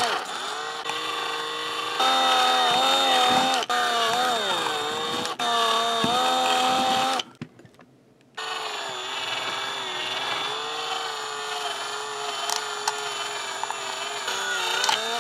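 Small electric drill with a twist bit boring holes in a plastic toy-train part: a motor whine whose pitch sags and recovers as the bit bites. It stops for about a second midway, then starts again and runs more steadily.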